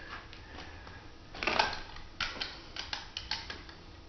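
Sheet vinyl flooring being trimmed and worked flat by hand: a run of irregular sharp clicks and crackles, the loudest cluster about a second and a half in.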